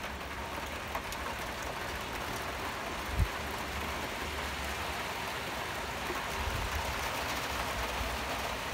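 Steady rushing noise of a rough, storm-driven sea breaking on the shore, with a brief low thump about three seconds in.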